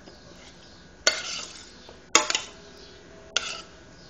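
A metal spoon clanking against a steel saucepan of warm jam, three sharp knocks about a second apart, the middle one ringing on briefly.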